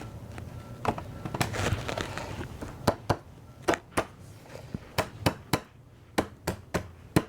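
Sharp wooden knocks, about a dozen at uneven spacing: tavern table parts being tapped together at the joints during a dry fit.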